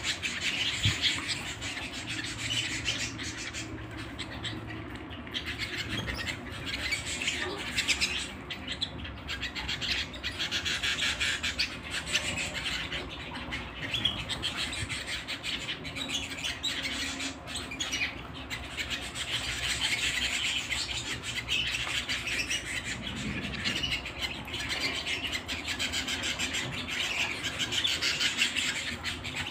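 Domestic canary singing a long, unbroken song of rapid trills and rolls.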